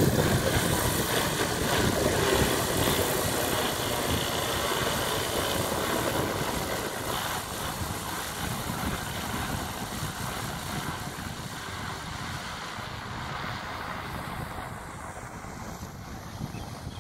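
Propellers and motors of an X8 multirotor drone droning steadily in flight as it climbs away, the sound growing gradually fainter.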